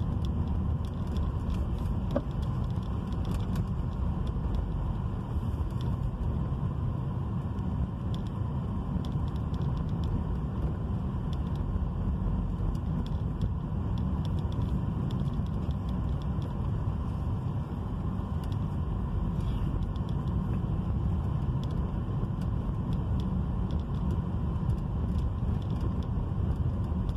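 Interior noise of a car driving slowly: a steady low rumble of engine and tyres heard from inside the cabin, with faint light ticks over it.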